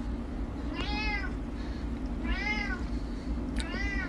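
Grey tabby cat meowing three times, about a second and a half apart, each call rising and then falling in pitch.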